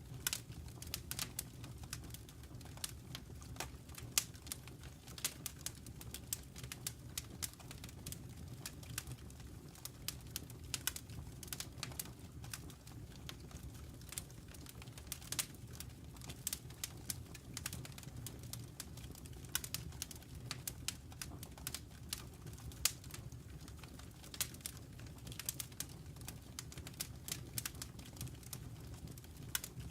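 Wood burning in a fireplace, crackling and popping: frequent sharp snaps at irregular intervals over a steady low rumble.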